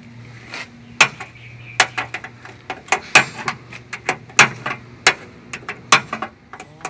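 Sharp metal clicks and clinks of a hand wrench on the mounting screws of a truck's control box, coming irregularly about once or twice a second as the screws are worked tight in a cramped spot. A low steady hum sits under the first few seconds.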